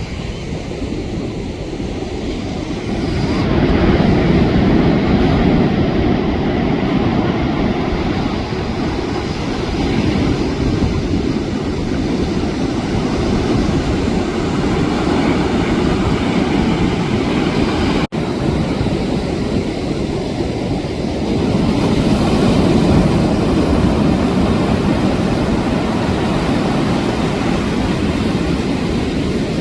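Steady rushing noise of surf and wind buffeting the microphone, swelling and easing over several seconds, with one momentary dropout about two-thirds of the way through.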